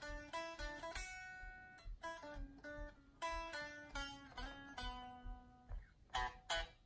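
Stratocaster-style electric guitar playing a single-note melodic line, picked note by note, then a few short, sharp strummed chords near the end.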